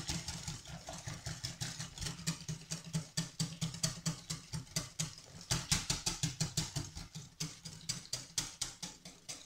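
Wire whisk beating a thin cake batter of eggs, sugar, oil and milk by hand in a bowl: fast, regular strokes, about five a second, each a click of the wires against the bowl.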